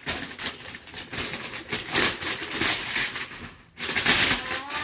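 Gift wrapping paper being torn off a large box, in a series of rips and crinkles. The loudest rips come about two seconds in and again about four seconds in.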